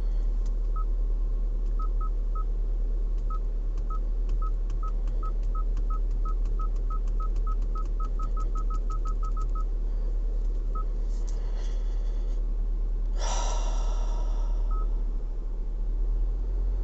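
Short electronic beeps from a 2022 Hyundai Tucson's touch-sensitive climate-control panel, one for each button press. They come faster and faster over the first ten seconds, then a few single beeps follow, over a steady low cabin hum. The panel beeps at every touch while the climate controls fail to respond. A brief, louder ringing tone comes about 13 seconds in.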